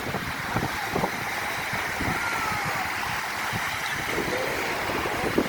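Strong wind buffeting the microphone, a steady rumble, with waves breaking on the shore underneath.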